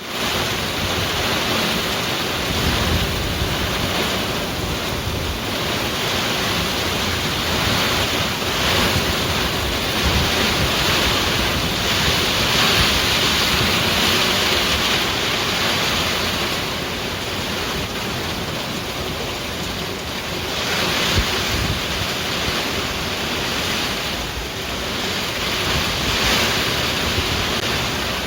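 Heavy typhoon rain pouring down steadily, swelling and easing every few seconds as the wind gusts, with wind buffeting the microphone.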